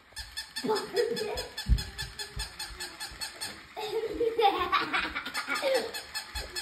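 Battery-powered walking plush toy puppy: its motor and legs clicking rapidly and evenly as it walks on a wood floor, with short honk-like electronic yaps over the clicking.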